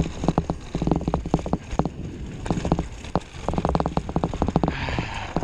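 Downhill mountain bike rattling over a loose, stony dirt trail: rapid, irregular clicks and knocks from the chain, frame and tyres striking stones, over a low rumble. Near the end a hiss of tyres sliding on gravel comes in as the bike slows.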